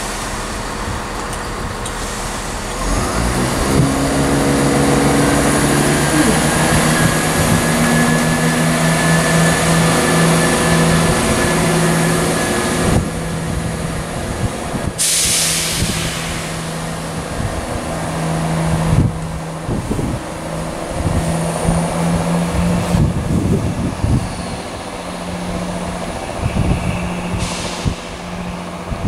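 Class 170 Turbostar diesel multiple unit's underfloor diesel engines running up as the train pulls away, the engine note rising and then settling to a steady drone. Air hisses sharply about halfway through.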